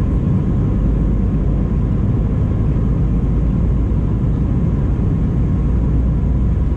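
Airbus A319 cabin noise: a steady, loud low rumble of the jet engines and airflow, with a faint steady whine above it.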